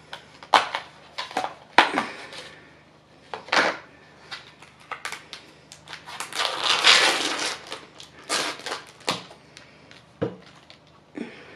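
Thin clear plastic deli containers being peeled open and handled: a run of crackles, clicks and snaps, with a longer crinkling stretch about six to seven and a half seconds in.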